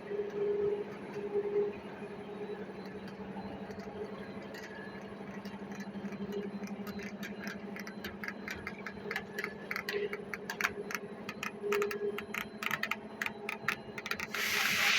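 Machinery running with a steady low hum and rapid, irregular clicking that grows denser from about halfway, then a short burst of hiss near the end.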